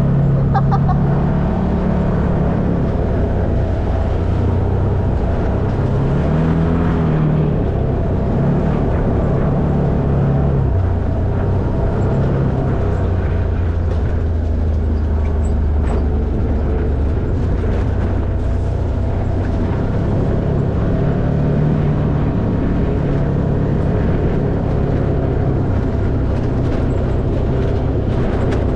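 Side-by-side off-road vehicle (UTV) engine running under way on a rough dirt trail, heard from inside the open cab. The engine pitch rises and falls with the throttle, mixed with scattered rattles and knocks from the chassis.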